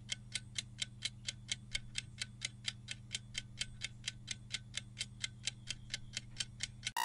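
Countdown-timer sound effect of a ticking clock, sharp even ticks about four to five a second over a low steady hum.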